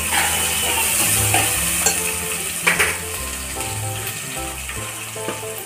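Sliced onions and green chillies frying in hot oil in a pot, sizzling steadily while a steel ladle stirs and scrapes them. A few sharp clicks of the ladle against the pot come about two to three seconds in.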